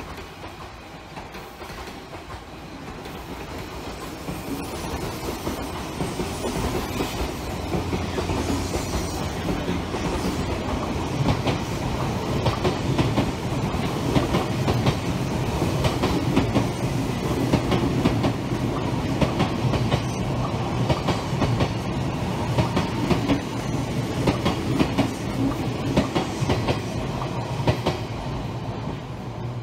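A passenger train passing close by, its wheels clicking over the rail joints in a fast, steady run of clatter. The sound builds over the first several seconds and eases off near the end.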